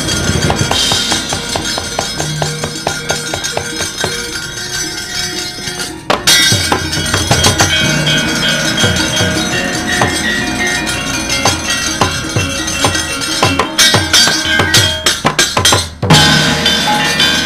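Javanese gamelan ensemble playing wayang accompaniment: drumming with rapid metallic strikes and ringing gongs and metallophones. The music cuts out for an instant near six seconds and again near sixteen seconds, then comes back louder.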